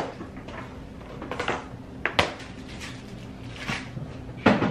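Refrigerator door and food packages being handled: three sharp knocks, at the start, about two seconds in and near the end, with softer rustling between them.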